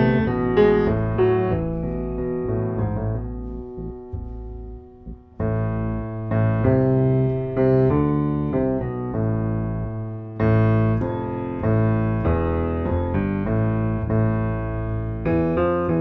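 Solo piano music: a melody over sustained bass notes, thinning out and pausing briefly a few seconds in, then resuming.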